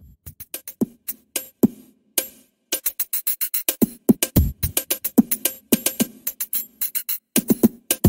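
Electronic background music built on a drum-machine beat: a quick run of short, sharp percussive hits and low kick-drum thumps, with a brief break about two seconds in.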